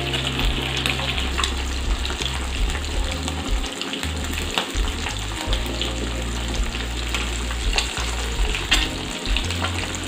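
Masala-coated anchovies deep-frying in hot oil in a kadai: a steady sizzle with many small crackling pops. The sizzling has not yet died down, the sign that the fish still hold moisture and are not yet crisp enough to take out.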